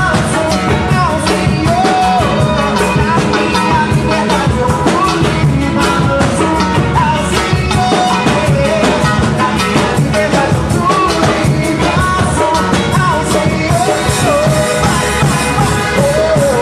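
Live church worship band playing a song, with singing over drums and instruments.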